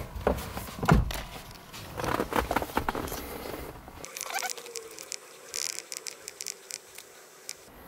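Handling noise in a car's footwell: clicks, knocks and rustling as the diagnostic scan tool's connector is plugged in, with a louder thump about a second in. This is followed by fainter clicks as buttons are pressed on the handheld scan tool.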